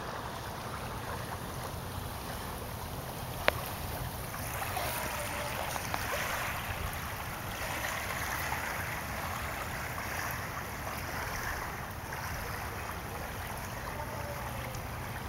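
Lake water lapping at the shore: a steady hiss that swells a little louder for a few seconds in the middle. One sharp click about three and a half seconds in.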